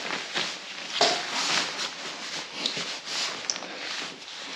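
Three-layer nylon waterproof rain jacket rustling and swishing in a run of irregular strokes as it is pulled on and handled.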